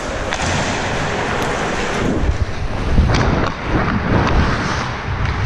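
Wind rushing over a helmet-mounted camera's microphone as the wearer skates fast, with ice skate blades scraping and carving the ice and a few dull knocks in the middle.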